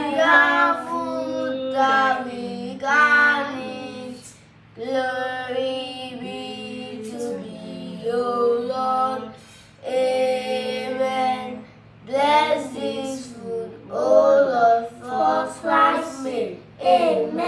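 A woman and children singing a prayer song together in short sung phrases with brief pauses between lines: a sung grace before the meal.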